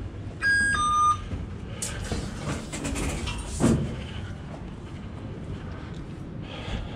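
A tram station turnstile's card reader beeps twice as a travel card is tapped, the second beep lower than the first. Clicks follow, then a single thump as the turnstile arm is pushed through.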